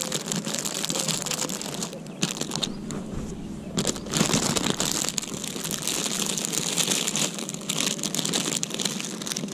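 Thin plastic bread bag crinkling and rustling close up as hands open it and pull out a bread roll.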